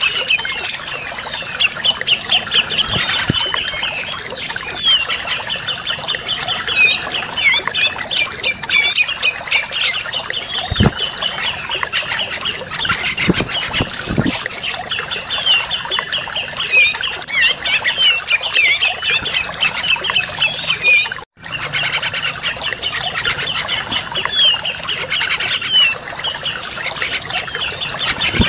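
Grey-cheeked bulbuls (cucak jenggot) calling in a dense, continuous chatter of quick, high notes, played as bird-trapping lure audio. The sound cuts out for an instant about three quarters of the way through.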